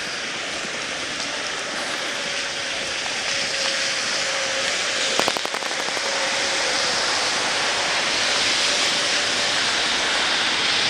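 Steady hiss of rain and traffic on a wet street, swelling slowly. A short rattle of clicks comes about halfway through.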